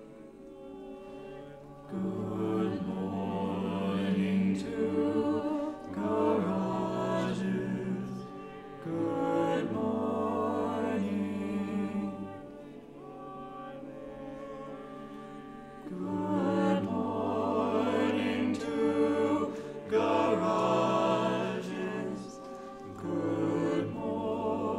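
Double choir singing long held chords in overlapping phrases that swell in and fall back every few seconds, with a quieter sustained stretch about halfway through.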